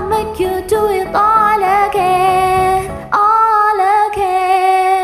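A woman singing wordless held notes with vibrato over a karaoke backing track, closing on one long sustained note.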